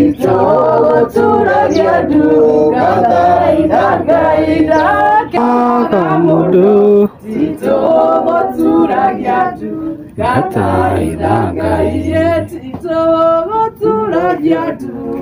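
A group of voices, mostly women's, singing a hymn together, with a short break about seven seconds in.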